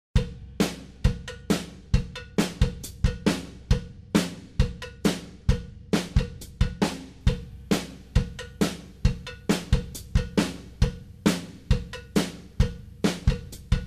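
A drum kit playing a steady rock beat alone, kick drum and snare with cymbals, about two strikes a second.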